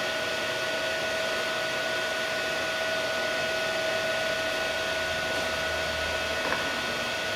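RTI Vortex 4200 Memjet wide-format printer running while opened for service: a steady fan-like whir with a thin, steady whine through it.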